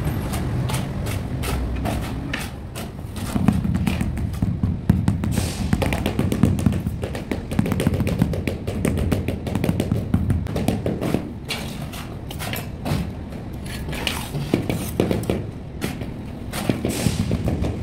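Rubber mallet tapping a large ceramic floor tile down into its mortar bed, a run of irregular knocks over low worksite background noise.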